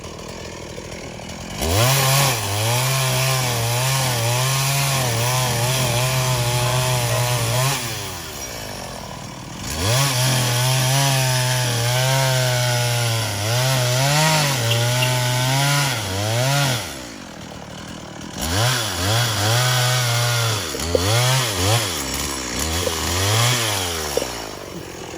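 Two-stroke chainsaw running in three long bursts, its engine note stepping up and down as the throttle is worked, cutting up a felled tree.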